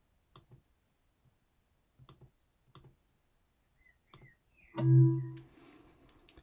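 Scattered single and double computer mouse clicks. About five seconds in, a short, loud low humming tone with a higher ring over it sounds and fades within about a second.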